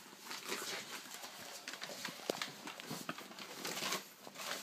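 Irregular patting thumps and scuffs of crawling on a hard wooden floor, mixed with rustling from the jostled phone.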